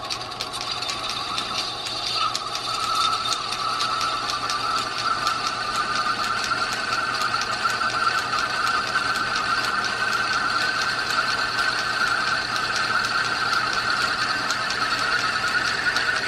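Small metal lathe running with its carbide tool bit pressed against the spinning bolt's end face: a steady whine that slowly rises in pitch, over fast, even ticking from the lathe's drive. The tool is pushing into and indenting the metal rather than cutting it.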